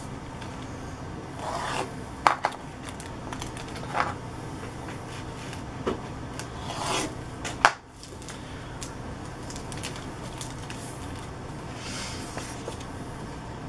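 Paper and clear plastic rubbing and rustling as a model-kit decal sheet is handled and worked out of its plastic sleeve, with a couple of sharp clicks.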